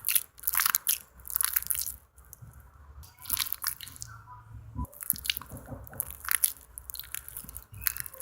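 Homemade glue slime being squeezed and poked by hand: irregular wet squishing and sticky clicking in short bunches. The slime is too wet, made with too much liquid.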